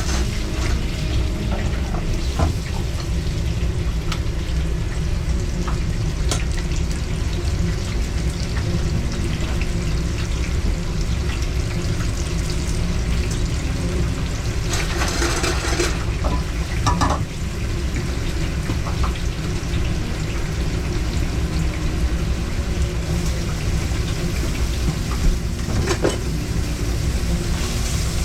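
Food frying in a pan, a steady sizzle over a constant low rumble, with a louder burst of sizzle about halfway through and a few small clicks of utensils.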